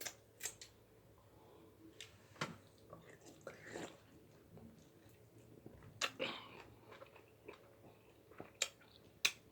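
Eating sounds: chewing, with scattered sharp crunches and clicks.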